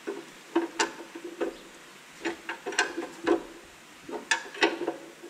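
Wrench clinking against metal at the tractor's oil pan: about a dozen sharp, irregular clinks, each with a brief ring.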